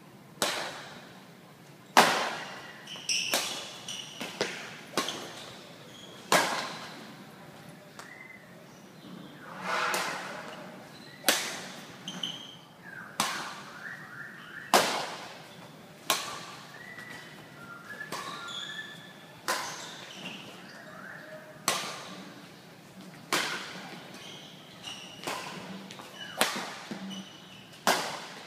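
Badminton rackets smacking a shuttlecock back and forth in a rally, one sharp hit about every second or so, echoing in a large hall. Short squeaks of shoes on the court floor come between the hits.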